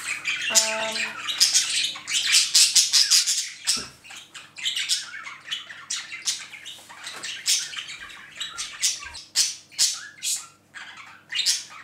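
Pet birds squawking and chirping in a rapid run of short, sharp calls, busiest in the first few seconds and thinning out after that.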